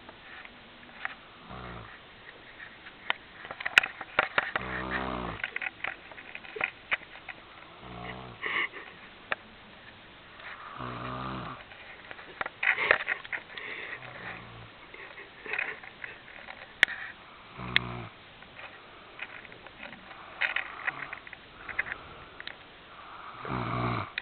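A woman snoring in her sleep, a low rattling snore on each breath, coming about every three seconds.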